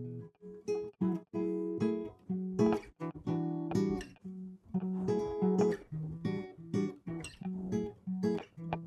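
Acoustic guitar played in short picked and strummed phrases, its notes stopping and restarting with brief gaps between them.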